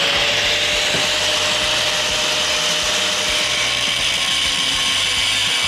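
Handheld angle grinder running at speed with a steady high whine, its abrasive disc grinding the steel of an excavator bucket.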